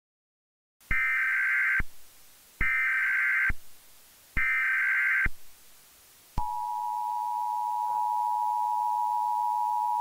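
Emergency Alert System tones: three short bursts of the SAME digital data header, each about a second long, then from about six seconds in the steady two-tone attention signal. Together they announce an incoming emergency alert message.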